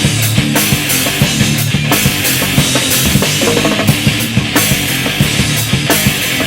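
Live heavy rock band playing: a dense wall of amplified instruments over a drum kit with steady, hard-hit drum strokes.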